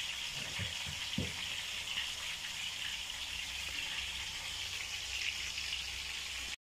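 Marinated singhara fish pieces frying in hot oil: a steady sizzle, with a few soft knocks about a second in. The sound cuts off suddenly near the end.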